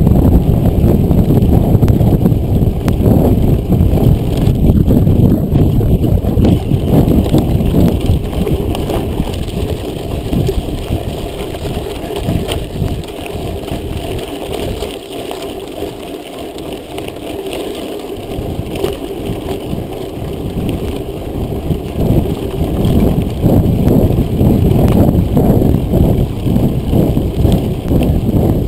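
Mountain bike ridden fast over a rough dirt track: wind buffeting the microphone mixed with the rattle of the bike over the ground. It eases for several seconds in the middle, then picks up again.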